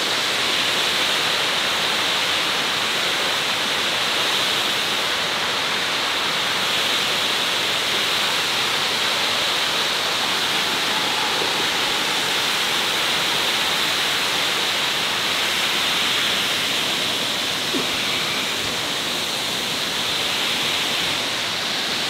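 Steady rushing of water pouring over a man-made waterfall on a river.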